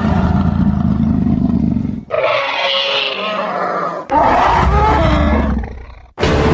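Deep animal-like roars and growls in a stage dance soundtrack, coming in about three surges, then fading and breaking off about six seconds in. Music starts abruptly right after.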